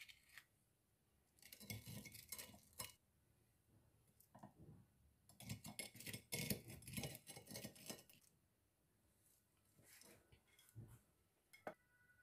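Chopsticks clicking and scraping on a ceramic plate and crackling against crisp panko-crumbed fried chicken as pieces are set down and stacked. The sound comes in two spells of quiet clatter, followed by a few single taps near the end.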